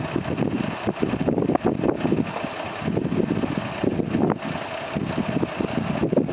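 Toyota FJ40 Land Cruiser's straight-six petrol engine running at low revs close by, its sound rising and falling unevenly as the truck creeps through mud.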